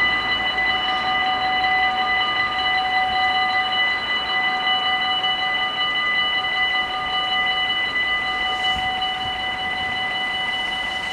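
Electric warning bells of a Dutch automatic half-barrier level crossing ringing steadily without pause. They signal an approaching train while the barrier arms come down.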